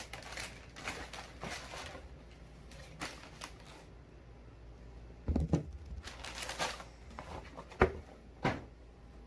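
Rustling of wrapping paper and handling of a shoebox as a sneaker is lifted out, with a few soft knocks about five, eight and eight and a half seconds in.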